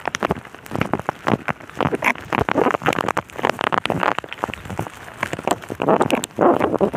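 Rain falling steadily on a wet road, with many sharp drop hits close by.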